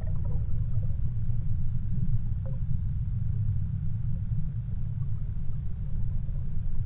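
Steady low rumble of fast river current, heard underwater through a camera's waterproof housing, with a couple of faint ticks.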